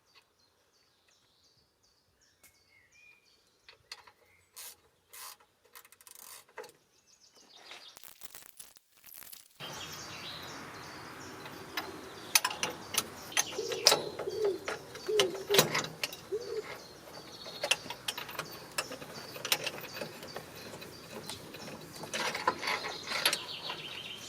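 Scattered sharp clicks and taps of hand tools on metal, a ratchet among them. About ten seconds in, a steady background hiss comes in and the clicking grows denser, with a few short low chirps.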